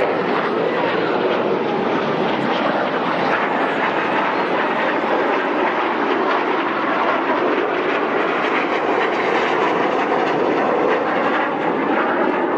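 BAE Hawk jet trainers flying over in formation, their jet engines making a steady, unbroken rushing noise.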